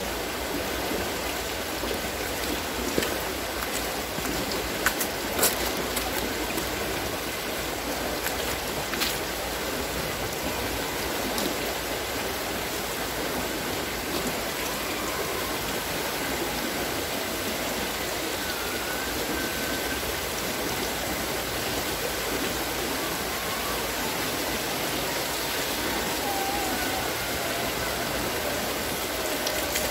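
Water splashing and pouring steadily from the scoops of a turning wooden water-lifting wheel. A few sharp knocks come in the first ten seconds.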